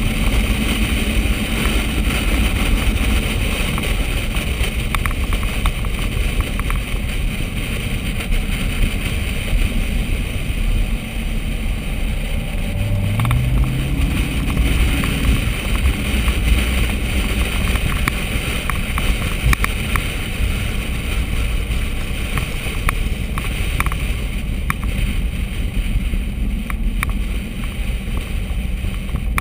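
Steady low rumble of a Corvette running at track speed: engine, road and wind noise on a car-mounted microphone. About 13 seconds in, an engine note climbs in pitch for a couple of seconds as it accelerates.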